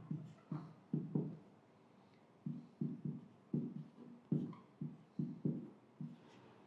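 Marker pen squeaking on a whiteboard while writing: a string of short, pitched strokes, with a pause of about a second between two runs of writing.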